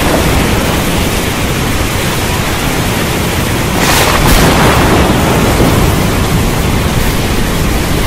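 Heavy rain pouring steadily with thunder rumbling low underneath; a sharper crackle of thunder about halfway through.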